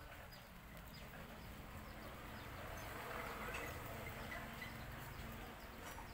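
A rabbit chewing a piece of carrot: faint, quick, crunching ticks, over a steady low rumble.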